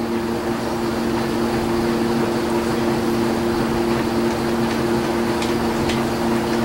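A steady mechanical hum holding two low pitches over an even hiss, with a few faint clicks in the second half.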